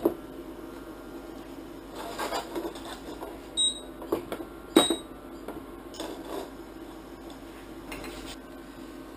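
A frying pan knocking and sliding on an induction cooktop's glass top, with two short high beeps from the cooktop's touch controls as they are pressed, a little past the middle.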